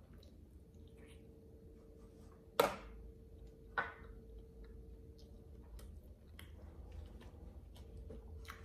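Close-miked chewing of food, with soft mouth clicks and two sharp, loud clicks about a second apart near the middle. A faint steady hum runs underneath.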